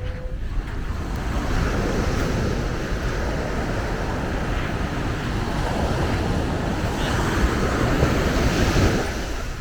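Surf breaking and washing up the beach, swelling twice, with wind rumbling on the microphone.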